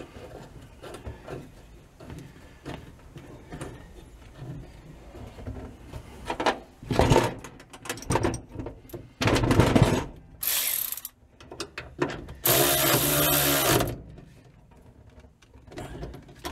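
Cordless electric ratchet running a nut down on a bolt in four short bursts, the last and longest about a second and a half, with a steady motor whine. Before it, quieter clinks of nuts and tools being handled.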